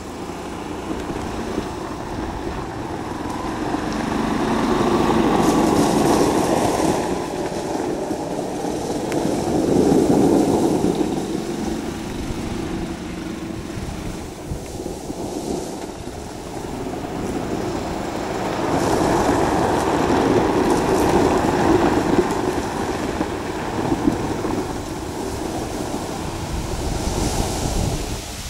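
Golf cart driving hard on a gravel driveway, its running noise and tyres on loose gravel in a steady rumble that swells and fades as it comes close and pulls away, several times over.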